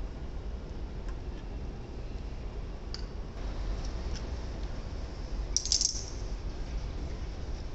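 A screwdriver and the plastic and metal parts of a Robin G350L engine's air cleaner click and rattle as the air cleaner is worked loose from the carburettor. There are a few light clicks, then a brief, louder clinking rattle about five and a half seconds in, over a low, steady background hum.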